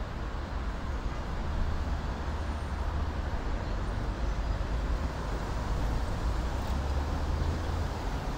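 Steady road traffic on a busy city boulevard: a continuous low rumble of passing cars with no single event standing out.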